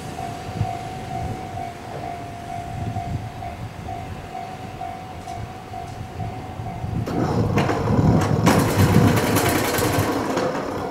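An Ohmi Railway electric train runs into the station beside a stopped train and slows to a halt. Its running and braking noise grows loud about seven seconds in and is loudest a little before the end, after a steady tone that lasts through most of the first part.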